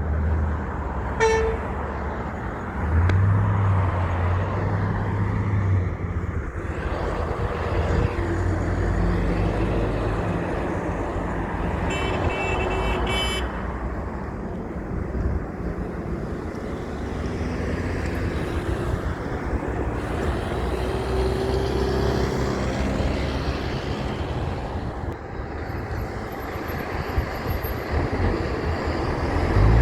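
Heavy trucks passing with a steady low engine rumble, a short horn toot about a second in, and a couple of quick higher-pitched horn blasts around twelve to thirteen seconds in.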